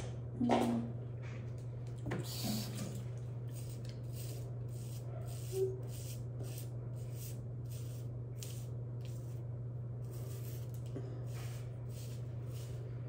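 Steady low hum of a small bathroom, with a few light knocks of small items being handled on the sink counter in the first three seconds.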